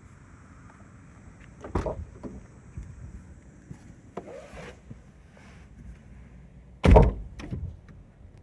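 Car door sounds on a Mazda ND Roadster before it is started: a thud about two seconds in, a few lighter knocks and rustles, then the loudest, the door shutting with a thunk near the end, followed by a smaller knock.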